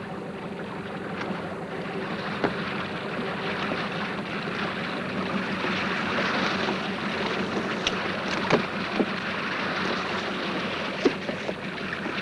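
Sea water rushing and splashing along the hull of a moving boat, with a steady low hum underneath. A few short knocks sound at intervals, several of them near the end.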